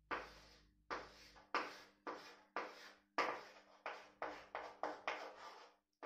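Chalk drawing lines on a blackboard: about eleven short strokes, roughly two a second, each starting sharply and trailing off.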